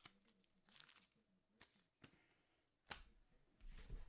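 Near silence with faint rustling and a few soft clicks from hands handling trading card packs, and a sharper click about three seconds in.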